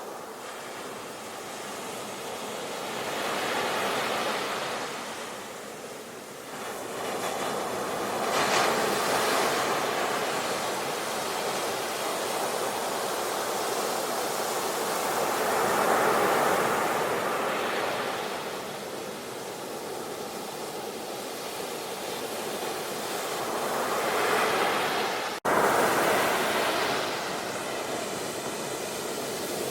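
Ocean surf: waves breaking and washing in, swelling and fading every several seconds. About 25 seconds in the sound cuts out for an instant and returns abruptly.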